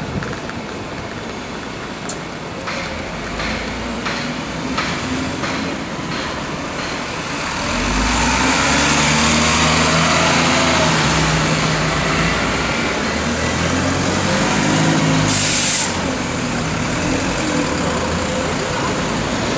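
London buses pulling away and passing close, their engines running and revving up as each one moves off, with a short sharp hiss of air from a bus's air brakes about fifteen seconds in.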